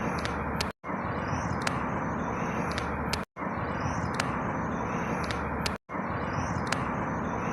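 A short outdoor ambience recording looped about every two and a half seconds, with a brief dropout to silence at each seam. It is a steady rushing noise with a bird chirping high above it, the same chirps coming round on every repeat.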